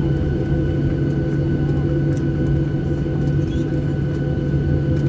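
Airliner's jet engines running steadily, heard from inside the passenger cabin as a constant hum with several thin steady whining tones over an even rush. The plane is on the ground shortly before takeoff.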